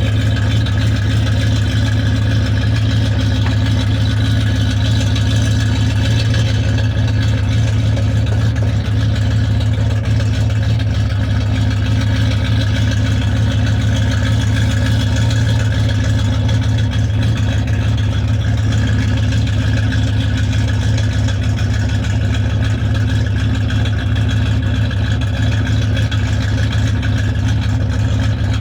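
A truck's gasoline engine idling steadily with a deep, even hum that does not rise or fall.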